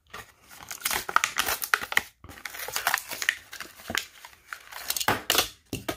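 A Hot Wheels blister pack being torn open by hand: the clear plastic blister crackles and crinkles as it is peeled away from the cardboard card, in a run of sharp crackles with a brief pause about two seconds in.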